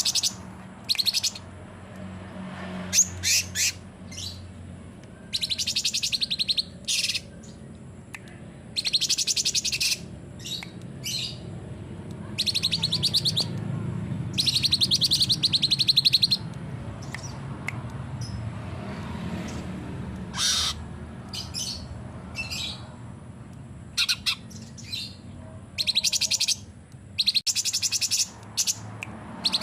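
Cucak cungkok singing in repeated bursts of very rapid, high chattering trill notes, about a second each, with short gaps between. A steady low hum runs underneath.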